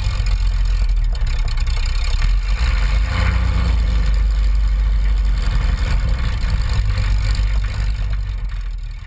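Light aircraft's propeller engine running at low taxi power, heard from a wing-mounted camera, a steady low rumble that grows a little fainter near the end.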